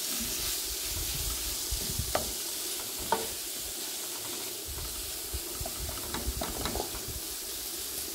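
Shredded zucchini and onion sizzling in olive oil in a frying pan while being stirred with a wooden spatula: a steady frying hiss with the scrape of the spatula through the vegetables and a few light taps against the pan in the middle.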